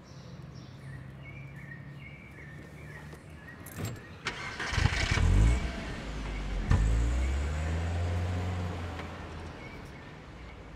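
A car engine starts about five seconds in, just after a couple of sharp clicks. It then runs with a steady low hum that fades away toward the end.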